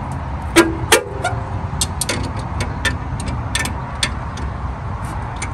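Metallic clicks and clinks of hand tools and parts being handled on a coilover strut, two louder ringing clinks about half a second and a second in, over a steady low rumble.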